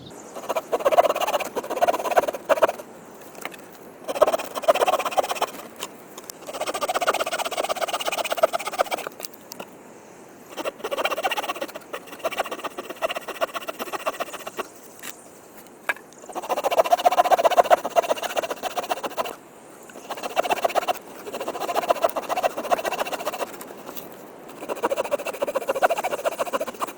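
Saw blade of a Victorinox Soldier pocket knife rasping through a wooden stick, in bursts of back-and-forth strokes separated by short pauses.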